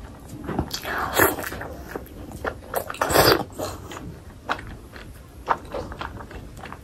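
Close-miked chewing of a mouthful of fatty pork curry and rice: irregular mouth and chewing sounds, loudest about three seconds in.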